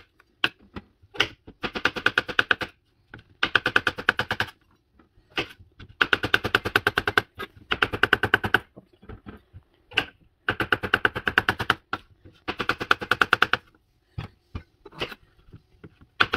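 Chef's knife slicing button mushrooms on a cutting board: runs of rapid blade strikes on the board, about ten a second, each run lasting one to two seconds with short pauses and a few single strokes between.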